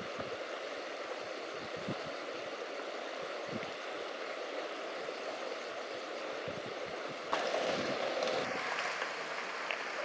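Steady rush of a mountain stream's water over stones, with a few faint knocks underneath. About seven seconds in, the sound turns abruptly louder and brighter.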